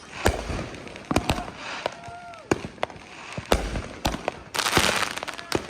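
Consumer fireworks going off: an irregular string of sharp bangs, with a burst of hissing crackle about five seconds in.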